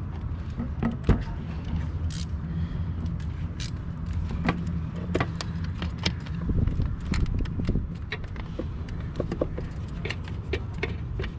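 Irregular metallic clicks and clinks of hand tools as a 7 mm socket and wrench are picked out and fitted onto a nut, over a steady low hum.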